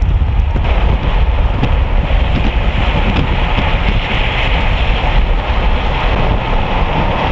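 Loud, steady rushing wind and road noise from a car driving fast through a storm, with a deep rumble underneath.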